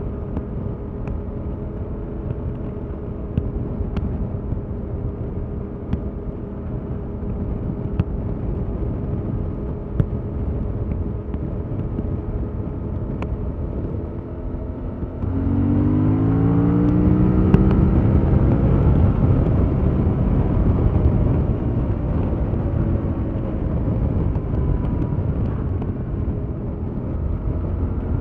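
Stock Yamaha MT-07's 689 cc parallel-twin engine pulling at a steady cruise. About halfway through, the throttle opens and the engine note jumps louder and rises in pitch as the bike accelerates, then eases to a steadier note.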